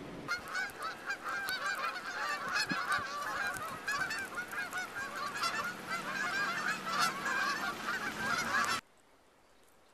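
A large flock of Canada geese honking, many calls overlapping one another, until the sound cuts off suddenly near the end.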